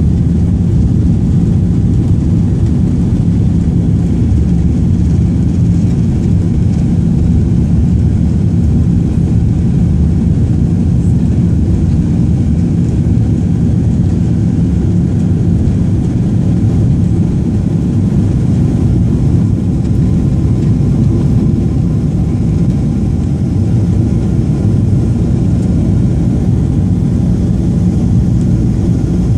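Boeing 767-400ER's General Electric CF6 turbofan engines at takeoff thrust, heard inside the cabin beside the engine. Steady, deep engine noise with a low hum and the rumble of the takeoff roll; the aircraft lifts off partway through and climbs out.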